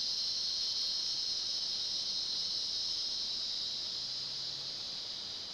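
Steady, high-pitched chorus of insects trilling without a break, easing slightly near the end.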